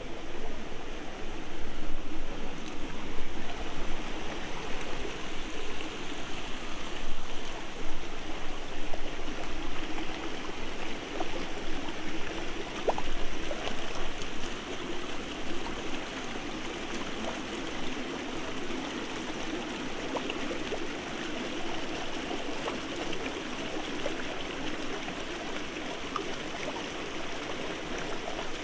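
Rocky forest stream running over small cascades: a steady rush of water that becomes softer and more even about halfway through.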